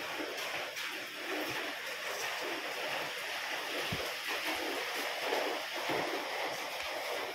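Steady rushing noise, with a few faint low knocks from handling about halfway through and again near the end.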